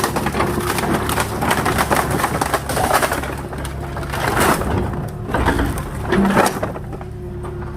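Farm mini excavator's diesel engine running steadily, with irregular crunching and cracking of pallet wood and firewood being pushed and broken by the machine.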